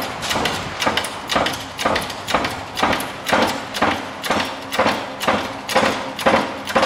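Evenly spaced metallic clunks, about two a second, each with a short ring, while the hub's stub axle is pressed home into the new wheel bearing in the knuckle.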